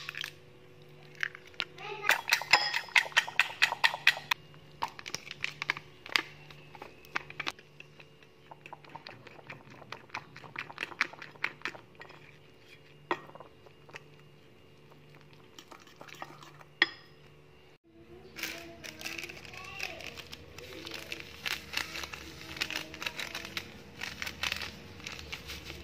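A kitchen utensil clicking and clinking against a bowl while batter is mixed, with a quick run of taps about two seconds in. After a sudden cut near the end, busier clatter of raw chicken pieces being handled in a metal bowl. A faint steady hum runs underneath.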